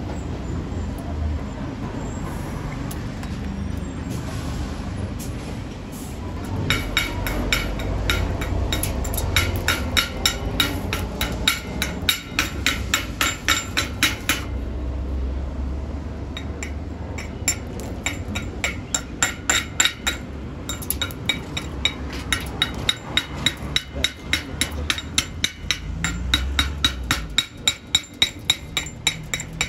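A hammer striking a freshly welded steel bead to chip off the slag: sharp metallic ringing taps, about three a second. They begin after a few seconds of low rumble, stop for a few seconds past the middle, then carry on.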